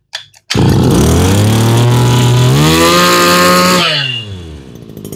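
Stihl FS2650 brush cutter engine, freshly started after priming and choking, comes in loud about half a second in and runs fast. It revs higher at about two and a half seconds, then drops back to a quieter idle near the end.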